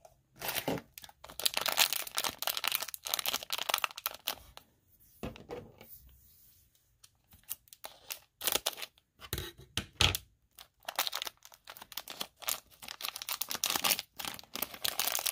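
Toy packaging being torn open and crinkled by hand, in rustling, crackling spells with a few sharp clicks in a quieter stretch midway.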